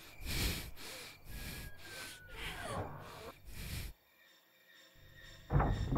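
A man breathing heavily and fast, about two noisy breaths a second, cutting off suddenly about four seconds in. A short loud whoosh comes near the end.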